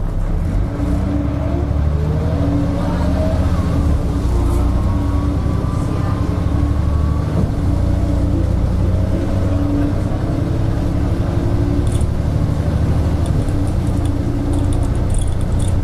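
Ikarus-bodied DAF single-decker bus heard from inside the passenger saloon while under way. The engine and drivetrain run steadily, with a whine rising in pitch twice as the bus pulls, and light rattling near the end.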